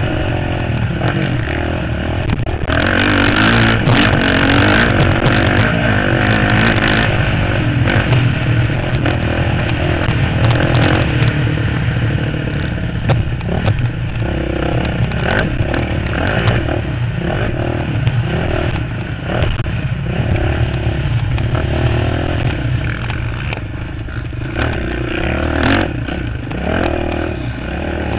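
Dirt bike engine running hard from an on-board camera, its pitch rising and falling again and again as the rider works the throttle through the gears. Wind rush and scattered sharp knocks and clatter from the bumps and dirt come with it.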